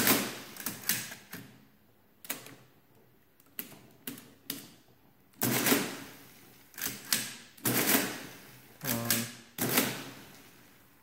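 Friden S10 electromechanical calculator clacking as its control keys are worked: a series of separate sharp mechanical clacks at irregular spacing, with a few short bursts of the mechanism cycling.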